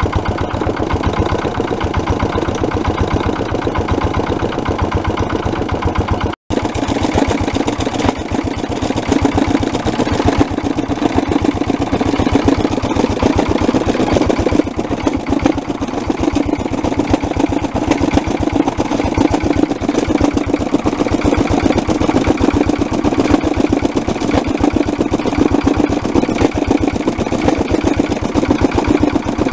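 Lister LR1 single-cylinder diesel stationary engine running steadily at its governed 900 rpm, with an even, rapid beat of firing pulses. The sound drops out for an instant about six seconds in.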